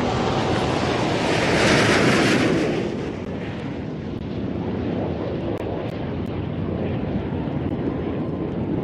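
Jet engine noise from the Boeing 787 Dreamliner's Rolls-Royce Trent 1000 turbofans at takeoff power as the airliner lifts off and climbs. The noise swells with a bright hiss about two seconds in, then eases into a steady rumble.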